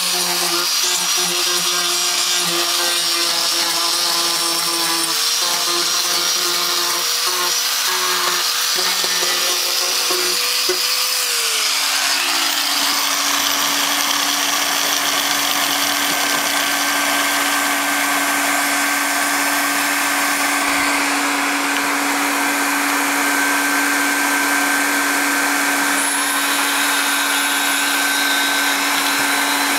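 Handheld angle grinder with a sanding disc abrading an HDPE geomembrane around a patch, roughening the surface before extrusion welding; its pitch dips and recovers as it is pressed on and lifted. About twelve seconds in it winds down and stops. A steady machine hum with hiss carries on and is then the main sound.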